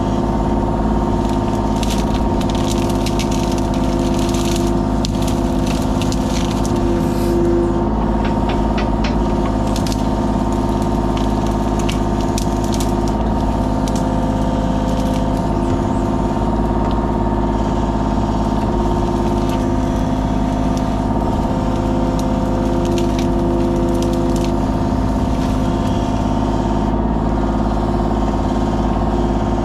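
Kubota KX033 mini excavator's three-cylinder diesel engine running at a steady speed, with scattered sharp cracks and snaps, mostly in the first ten seconds.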